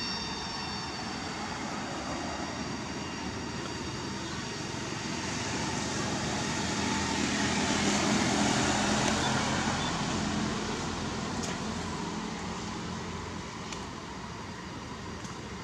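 A motorbike passing on the road: its engine and tyre noise rise to a peak about halfway through, then fade away over steady traffic noise.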